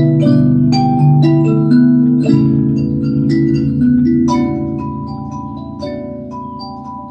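Harmony array mbira played in overlapping plucked notes: steel tines with a nearly pure, sine-like ring after a sharp attack. Low notes sustain under quick higher notes, and the playing grows quieter through the second half.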